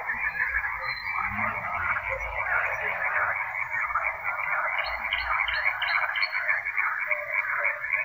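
Dense frog chorus, a steady unbroken din of many overlapping calls. About five seconds in, a nightingale gives a short phrase of about five quick repeated high notes over it.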